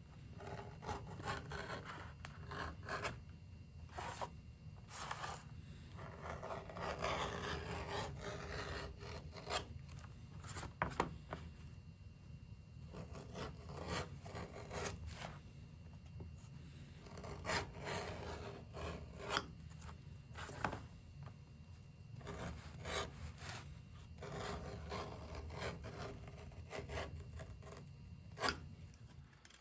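Hand-finishing the edges of a leather knife sheath: irregular scraping and rubbing strokes of edge beveling, sanding and burnishing, with occasional sharp clicks, over a faint steady low hum.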